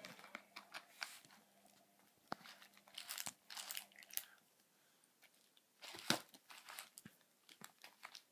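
Sweet wrappers crinkling and rustling in short bursts, with a few sharp clicks in between, as wrapped sweets are unwrapped and picked through.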